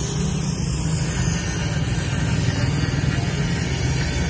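Steady low rumble of street traffic and engines, with a constant hiss over it.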